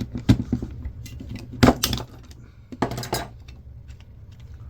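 Prying at the plastic parts of a 1982 General Electric camcorder being scrapped: a few sharp knocks and clinks, the loudest about a second and a half in, then a short clattering run near three seconds.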